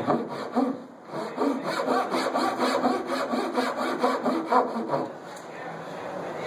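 A long steel blade drawn in quick strokes, several a second, along a hardwood piano bridge, scraping and shaving the wood while the bridge is notched. The strokes ease off about five seconds in.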